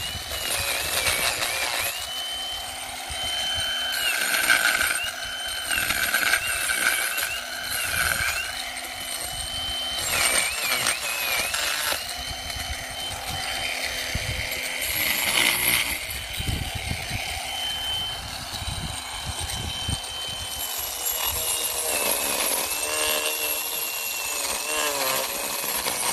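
Handheld electric rotary carving tool grinding the dead wood of a Chinese elm bonsai trunk: a steady high whine whose pitch keeps dipping briefly and recovering as the bit bites into the wood.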